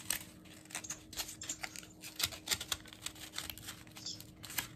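Thin cardboard pieces being handled and slid together at their cut notches: light, irregular taps, scrapes and rustles.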